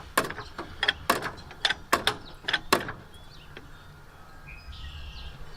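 Floor jack being pumped to lift the car: a run of sharp metallic clicks, about two a second, that thins out about three seconds in.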